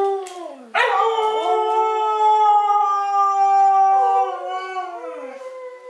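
Siberian husky "talking": a short call falling away, then one long, wavering, word-like howl lasting about four and a half seconds, trailing off into a shorter call near the end. The caption renders it as "I don't want a puppy".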